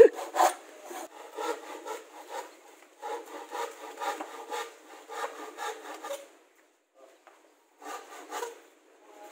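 Hand saw cutting thin plywood in quick back-and-forth strokes. The sawing stops about six seconds in and resumes briefly near the end.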